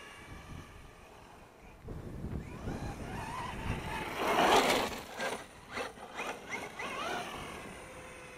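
Brushless electric motor of an FTX Carnage 2.0 RC truck (4350kv) whining as the throttle is worked, its pitch rising and falling, with tyre noise on tarmac. It is loudest as it passes close about four and a half seconds in, then revs in several short bursts and fades as it drives away.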